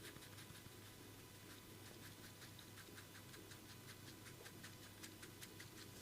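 Near silence with faint, irregular light ticks and taps, a few a second: hands working over skin during a massage.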